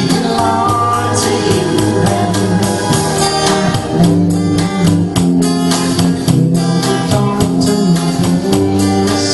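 Live duet: an acoustic guitar and an electric guitar strummed in a steady rhythm, with singing over them.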